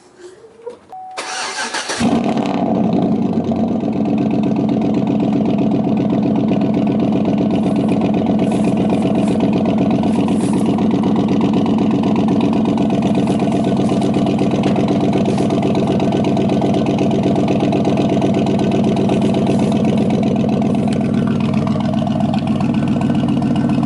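GMC Yukon's V8 cold-started after sitting for two days: the starter cranks for about a second, then the engine catches and runs loud and steady, a little quieter near the end.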